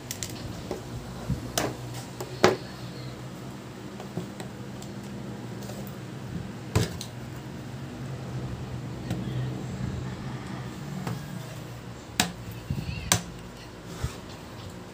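Handling noise on a wooden table: scattered clicks and knocks as a screwdriver is picked up and a plastic laptop case is lifted and turned over, the sharpest knock about two and a half seconds in and two more near the end, over a steady low hum.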